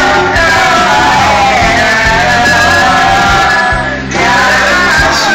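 Karaoke: a voice singing a melody over a loud backing track through a PA.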